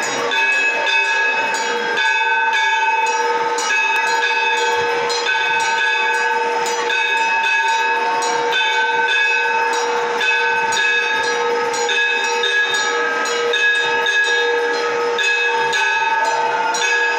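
Temple bells ringing continuously during an aarti: a dense clangour of rapid metallic strikes over several sustained ringing tones.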